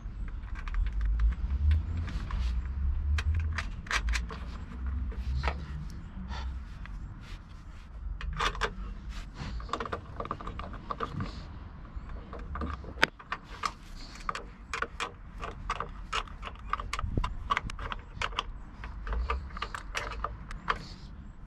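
Metal clicks and clinks of a socket and ratchet as bolts are turned by hand to fix a plastic housing to a van, coming in quick irregular runs, with scraping and a low rumble underneath.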